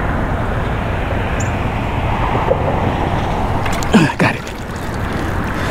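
Steady, fairly loud outdoor background rumble with no distinct events in it. A brief shout comes in about four seconds in.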